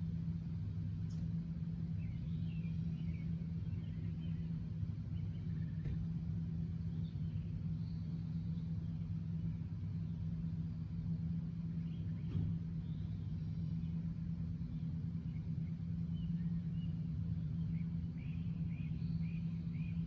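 A steady low machine hum from an unseen motor or engine running, with small birds chirping faintly on and off.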